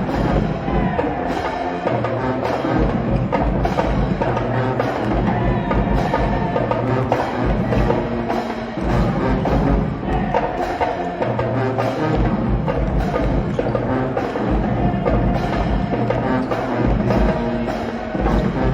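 Music with a steady beat and prominent percussion.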